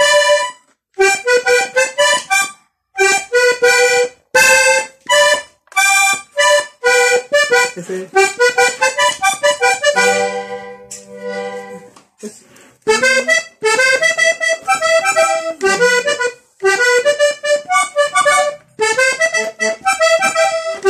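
Three-row diatonic button accordion playing vallenato melody phrases in short runs of quick notes with brief stops between them. About halfway through it holds one long chord over a bass note, then the runs resume.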